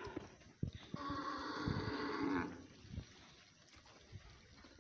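A farm animal gives one long, steady-pitched call of about a second and a half, starting about a second in, followed by a few soft knocks.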